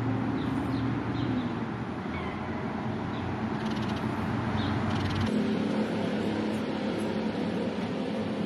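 A cat meowing in a few short, high calls over a steady low hum; the hum changes abruptly about five seconds in.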